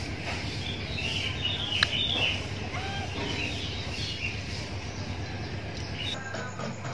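Outdoor ambience of birds chirping over a steady low rumble, with one sharp click about two seconds in. The background changes abruptly near the end.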